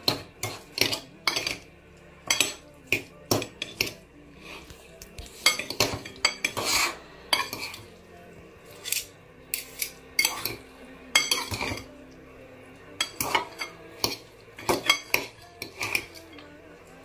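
Two metal forks clinking and scraping against a ceramic bowl as they toss a soft filling of vermicelli and fish. The taps come in quick, irregular runs, busier in a couple of spells.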